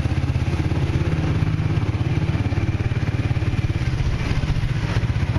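Small motorcycle's engine running steadily as it rides along, heard close up from the rider's seat with a fast low pulsing.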